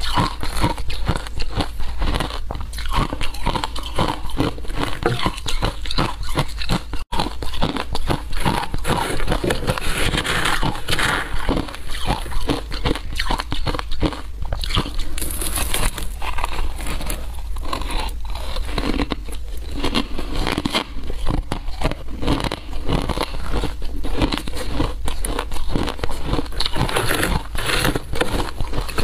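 Close-miked crunching and chewing of mouthfuls of shaved ice, a dense crackle of small bites, with a metal spoon scooping through the ice in a metal tray.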